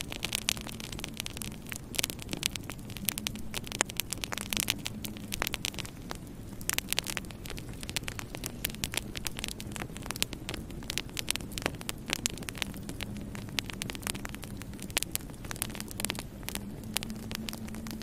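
Wood fire in a fireplace crackling, with frequent irregular sharp pops and snaps over a low, steady hum.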